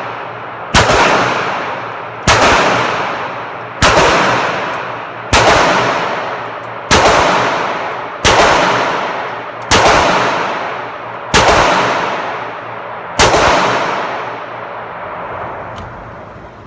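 A gun firing nine shots at a steady, deliberate pace, about one every second and a half. Each shot is followed by a long echoing decay.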